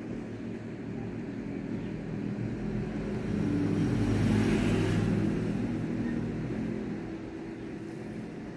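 A motor vehicle's engine running, a low steady hum that swells louder about halfway through and eases off again, as a vehicle passing by does.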